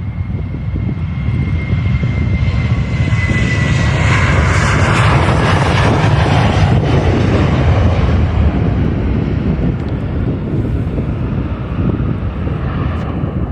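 Airliner's jet engines passing by: a broad roar that swells to its loudest about four seconds in, with a high engine whine falling slightly in pitch as the aircraft goes past.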